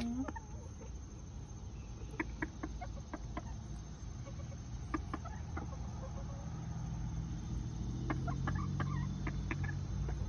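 Chicken clucking in short, separate notes, a few at a time, over a low steady hum that grows louder in the second half.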